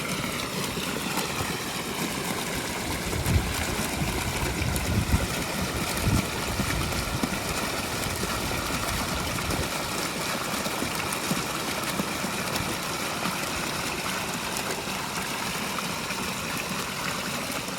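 Pondless waterfall running: water pouring steadily over stacked rocks. New waterfall foam seals the gaps, so the flow stays on the rocks and gives a strong, full sound.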